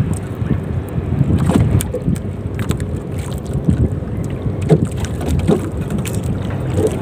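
Wind buffeting the microphone and small waves lapping against a small wooden boat's hull, with scattered light knocks.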